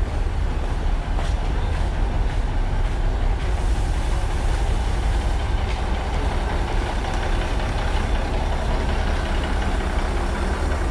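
Diesel railcar idling at the platform: a steady, low engine rumble that holds even throughout.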